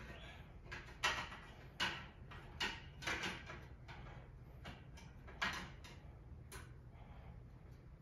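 Electrical wire being cut and handled with a hand tool: a series of six sharp clicks and snips spread over about six seconds, over a low steady hum.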